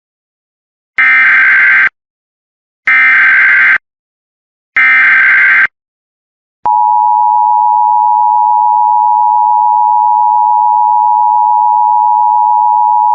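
Emergency Alert System header: three one-second bursts of SAME digital data tones about a second apart, which carry the coded Local Area Emergency alert. About six and a half seconds in, the steady two-tone EAS attention signal (853 and 960 Hz together) starts; it announces that an emergency message follows.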